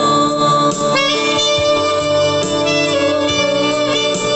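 Instrumental break in a romantic ballad: a sustained lead melody, likely a saxophone or similar wind instrument, over guitar and backing chords, with no singing.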